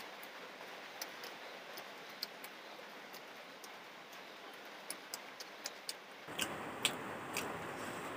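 Eating sounds from a khichdi meal eaten by hand: scattered sharp clicks and smacks, a few at a time, over a steady hiss that turns louder about six seconds in.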